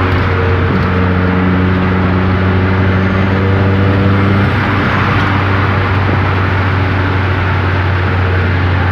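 Turbocharged Peugeot 206 1.6 16v four-cylinder engine running under way, a steady drone over road and tyre noise, its tone shifting about four and a half seconds in.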